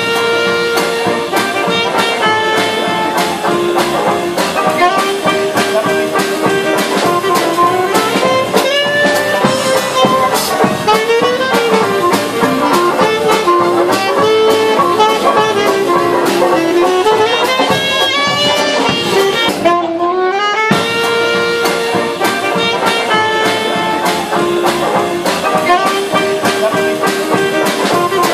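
Traditional jazz band playing: clarinet and brass horns leading over drums, double bass and keyboard.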